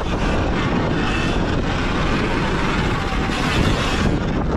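Sur-Ron Ultra Type R electric dirt bike ridden at speed on a dirt track: a steady rush of wind on the microphone and knobby tyres on loose dirt, with low rumble from the bumps and a faint high motor whine.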